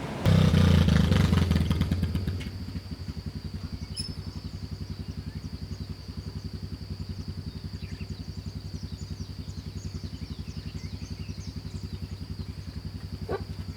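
An engine idling with an even, rapid pulsing beat, with a louder rush of noise in the first two seconds. A thin steady high-pitched tone sounds over it.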